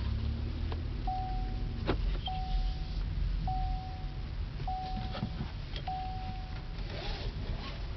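2008 Buick Lucerne's dashboard chime sounding five even single-pitch dings about 1.2 s apart, typical of the seatbelt reminder, over the engine's low idle, with a sharp click just before the second ding.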